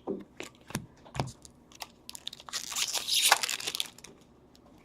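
Foil wrapper of an Upper Deck hockey card pack crinkling and tearing open: a few sharp crackles, then a dense crinkling rip lasting about a second and a half.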